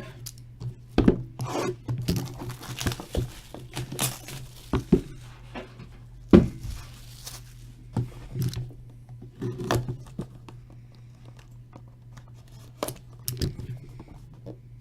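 Plastic wrapping being torn off and crinkled as sealed trading-card boxes are opened by hand, with irregular clicks and knocks of cardboard being handled. A steady low hum runs underneath.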